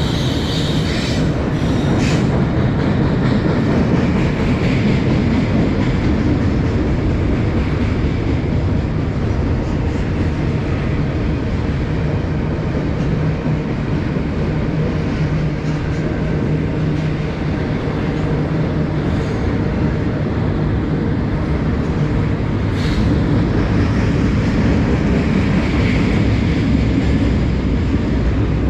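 Norfolk Southern freight train rolling past, a steady heavy rumble of wheels on rail with a few brief higher-pitched squeals.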